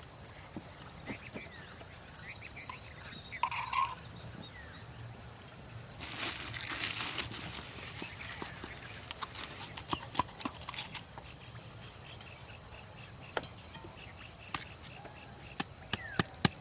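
Steady high insect chirring, with scattered sharp clicks and knocks and a couple of seconds of louder noisy rustling about six seconds in.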